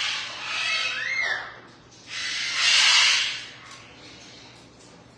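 Parrot calls: two noisy, rasping squawks with a short rising-and-falling whistle about a second in.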